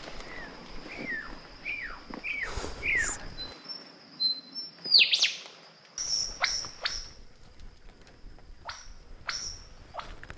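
Superb lyrebird singing a run of mimicked calls of other birds: a quick series of falling whistles, then a loud downward-sweeping call about five seconds in, followed by short sharp downward sweeps.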